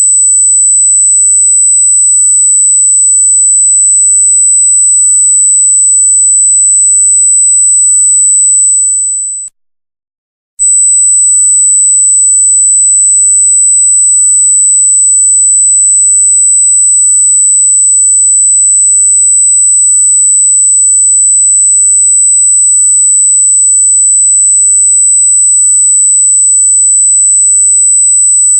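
Loud, very high-pitched pure electronic tone held steady on one pitch. About nine seconds in it fades and cuts out for about a second, then comes back at full level.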